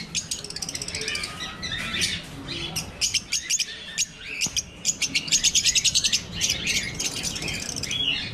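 A flock of Fischer's lovebirds in an aviary cage chattering with rapid, high chirps throughout, with a long fast run of chirps about five seconds in.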